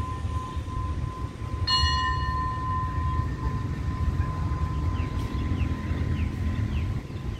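Station bell ringing: a tone already fading, then struck again about two seconds in and dying away about a second later. Under it runs the steady low rumble of the train's Alsthom diesel-electric locomotive idling.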